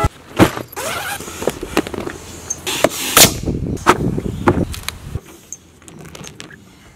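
Gear being handled: rustling of a nylon bag and straps with sharp plastic clicks and snaps, the loudest about half a second and three seconds in, as a fin is pressed into an inflatable paddle board's fin box. It gets quieter after about five seconds.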